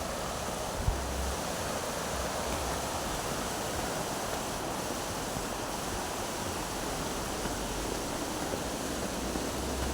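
Steady outdoor rushing noise with low rumbles on the microphone, and a single short knock about a second in.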